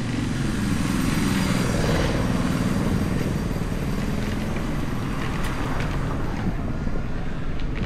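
A motor vehicle's engine running over a steady rumbling noise. Its hum fades about halfway through.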